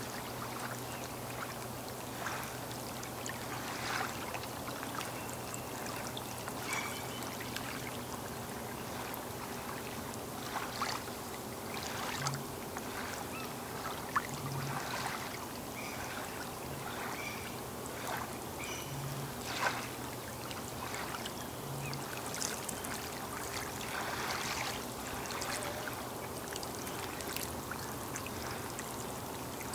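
Small waves lapping and splashing irregularly against a lake shore, with a faint steady low hum underneath.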